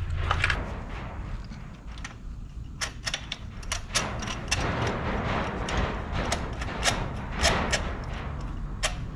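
Irregular sharp metal clicks and taps, a few a second, from hand tools working in the spark plug wells of a Honda N-BOX engine as new spark plugs are fitted.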